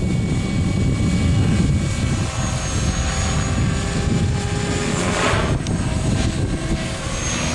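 Align T-Rex 500 electric RC helicopter flying overhead: steady rotor noise with a thin, high whine from its electric motor and drivetrain.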